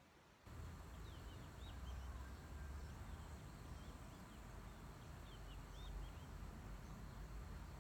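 Small birds chirping in short quick groups of high notes, over a steady low rumble that starts about half a second in.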